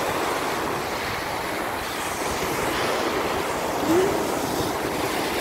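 Sea surf washing onto the shore, a steady rushing noise, with wind buffeting the microphone.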